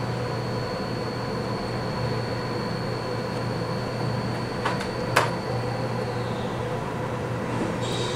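Steady low room hum with a faint high-pitched whine, broken about five seconds in by two light clicks of small parts being handled as the readout housing's screws are tightened on a small lathe.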